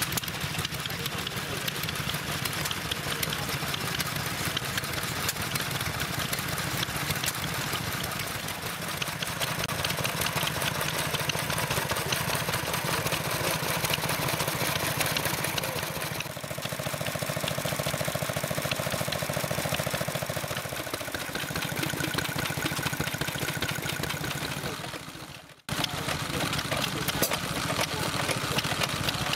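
Several vintage stationary engines running steadily together, a fast even beat of exhaust and valve clatter; among them is a Lister Junior belt-driving a small water pump. The sound cuts out for an instant near the end.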